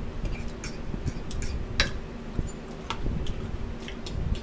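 Metal forks clicking and scraping against a plastic bowl and a plastic meal tray while eating tuna salad: scattered light clicks, a sharper one about two seconds in, over a low steady hum.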